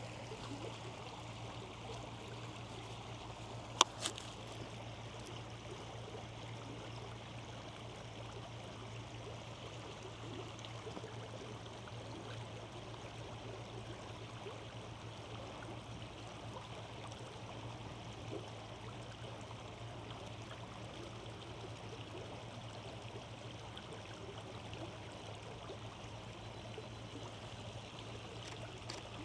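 Steady rush of a flowing creek, with a sharp double click about four seconds in.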